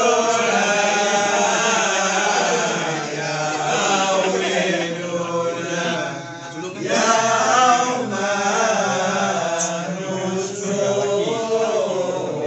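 A group of voices chanting marhaban, Malay devotional verses in praise of the Prophet, together in unison, with a brief dip about six seconds in.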